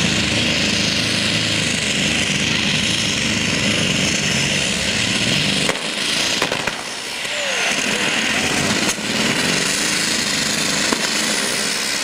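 Modified pulling tractor's turbocharged Continental tank engine running loudly. About six seconds in its low-end sound drops away for a second or so, with a few sharp pops, then comes back.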